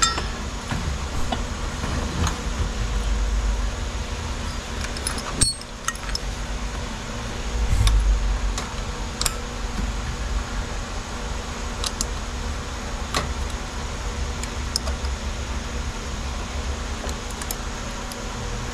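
Small metal clicks and clinks, scattered and irregular, as a throttle cable and bracket are fitted by hand to a Holley carburetor's throttle linkage. A few low thuds of handling come through over a steady low hum.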